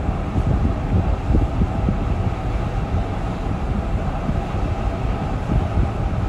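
Steady low rumble on a cruise ship's open deck, flickering unevenly: wind buffeting the microphone over the ship's machinery noise.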